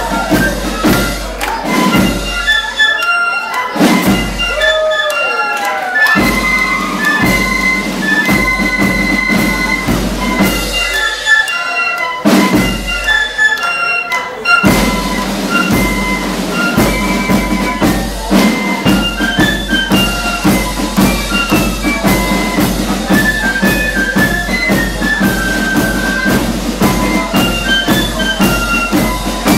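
Corps of drums playing a march: a line of flutes carries the melody over snare drums and a bass drum. The drum beat drops out briefly twice in the first half, then keeps a steady rhythm under the flutes.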